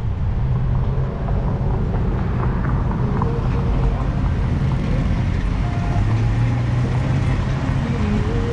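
Car driving, heard from a camera mounted on its roof: a steady low rumble of engine and road noise.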